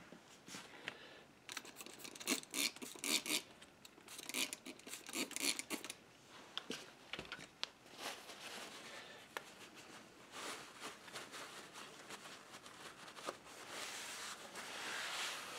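Hands scrubbing and wiping a small brass model tender-truck sideframe: clusters of quick scratchy strokes in the first six seconds, then softer rubbing. Near the end, a paper towel rubs it dry.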